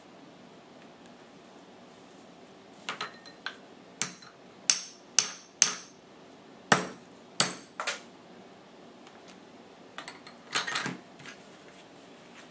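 A hammer taps the head of a second claw hammer whose claw is hooked around a roll pin, levering the pin out of the receiver of a Daisy 1903 Springfield replica drill rifle. The sharp metal-on-metal strikes begin about three seconds in and come roughly every half second for several seconds. A few lighter clinks follow near the end.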